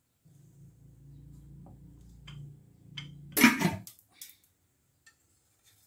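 Wooden rolling pin rolling paratha dough on a wooden board: a low, steady rumble for about three seconds. It is broken by one loud clatter, then a few light taps.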